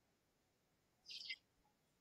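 Near silence: room tone, with one faint, brief high-pitched chirp about a second in.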